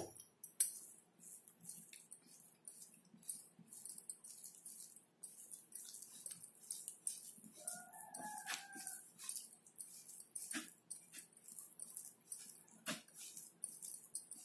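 Fingers kneading a thick, wet chilli-masala paste against a plate: irregular sticky squelching and scraping crackles, with a few sharper knocks. A brief bird call sounds about halfway through.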